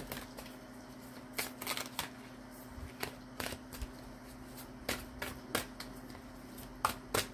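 A deck of tarot cards being shuffled by hand: a dozen or so short, irregular riffles and snaps of the cards.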